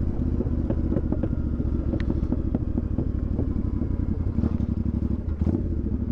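Motorcycle engine running on the move, its low, steady engine note broken by many irregular short ticks and knocks.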